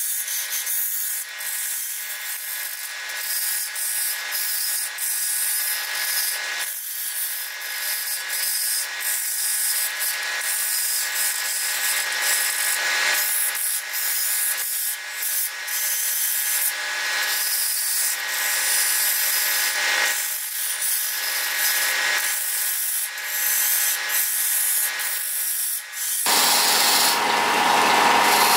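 A hand-held turning tool cutting a spinning wooden blank on a lathe: a steady scraping hiss of shavings coming off, broken by short gaps where the tool eases off, over a faint steady whine from the lathe. Near the end the cutting turns louder and fuller.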